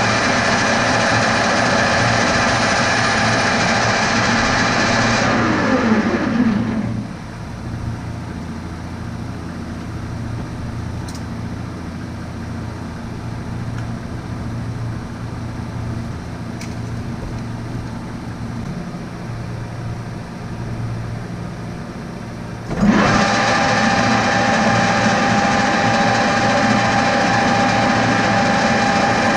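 Metal lathe running steadily, then coasting down to a stop with a falling pitch about six seconds in. A lower hum carries on until the lathe starts back up abruptly near the end and runs steadily again.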